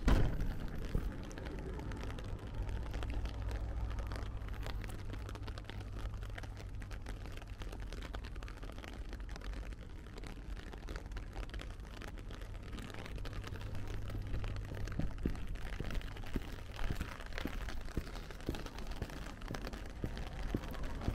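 Footsteps of someone walking in light rain, faint scattered ticks over a steady low rumble on a small camera's microphone, with one sharp bump right at the start.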